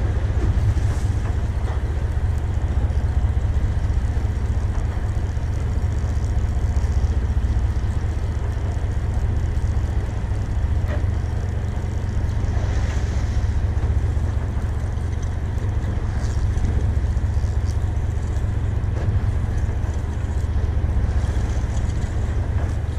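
Steady low rumble of a fishing boat's engine running, with wind buffeting the microphone.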